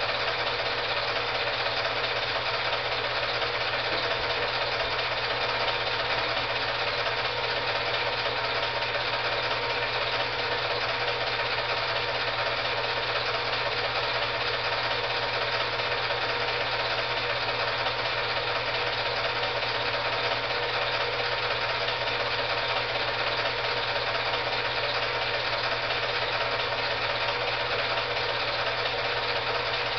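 Film projector running: a steady mechanical whirr with a fast, even ticking over a low hum.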